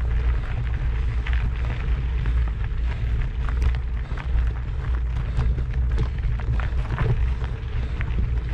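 Wind buffeting the microphone: a steady low rumble, with scattered light ticks over it.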